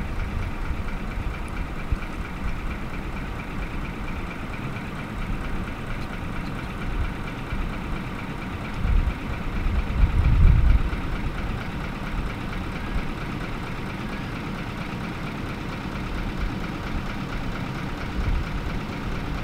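A vehicle engine idling steadily, with a brief louder low rumble about ten seconds in.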